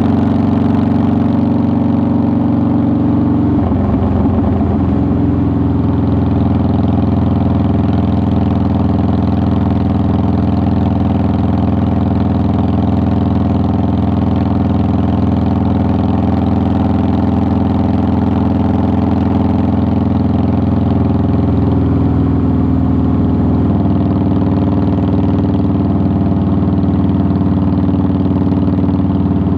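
2009 Harley-Davidson Softail Deluxe's Twin Cam 96 V-twin engine running at a steady engine speed while riding, its pitch briefly shifting about four seconds in and again past twenty seconds.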